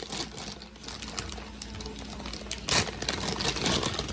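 Fruity Pebbles cereal being poured, a dense rattle of small clicks, swelling about three seconds in.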